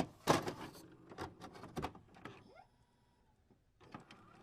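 Handling noise. A short rustle is followed by a quick run of sharp clicks and knocks, typical of a phone and tools being handled on a repair bench. These die away about two and a half seconds in, and faint clicks return near the end.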